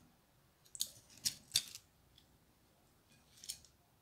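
Metal kitchen tongs clicking as chicken is picked up and set on a plate: a quick run of sharp clicks about a second in, and a softer one near the end.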